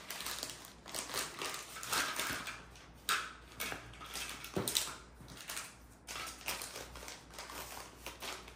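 Crinkly packaging rustling and crackling in irregular bursts as a small packet is handled and opened by hand.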